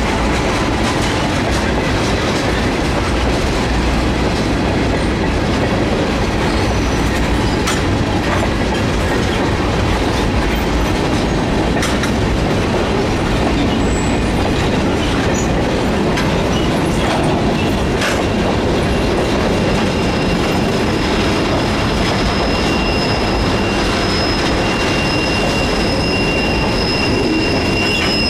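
Freight cars rolling past at steady speed: a continuous rumble and clatter of steel wheels on the rails, with a few sharp clanks. From about two-thirds of the way through, a steady high-pitched wheel squeal joins in.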